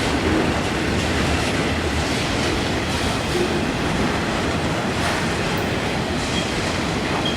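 Freight train of autorack cars rolling past at steady speed, a continuous rumble of steel wheels on the rails.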